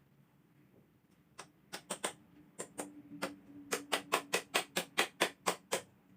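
Inkjet printer mechanism running through its ink process: sharp clicks, irregular at first, then a fast even run of about six a second over a faint motor hum, stopping near the end.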